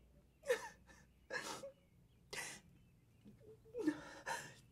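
A woman sobbing: about five gasping, breathy sobs, some with a short falling cry.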